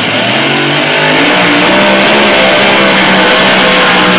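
Competition puller's engine at full throttle during a pull, rising in pitch over the first second and a half, then holding a high, steady pitch.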